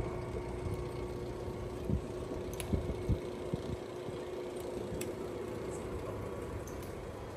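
Steady background hum with a faint steady tone. A few light clicks and metal clinks come from a hand ratchet loosening the screws of an oil pump's backing plate, mostly between about two and four seconds in.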